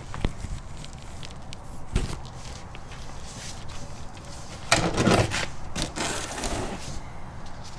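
Handling and movement noises under a car: a couple of sharp knocks, then a louder stretch of scraping and rustling about five seconds in.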